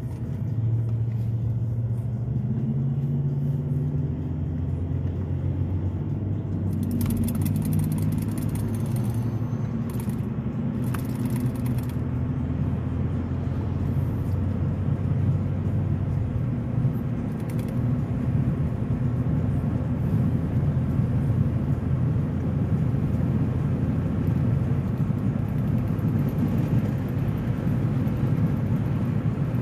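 Wind buffeting in through a partly open car window while driving, a steady low rumble, with the car's engine and road noise underneath.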